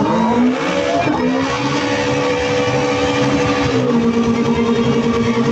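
Race car engine running hard at high revs with a steady pitch, which rises early and drops a step about four seconds in.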